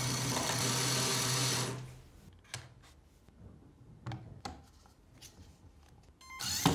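Small LEGO electric motor driving a toy car through its plastic gears: a steady whirr that stops about two seconds in. A few light plastic clicks follow as a wheel is handled, and the motor starts up again near the end.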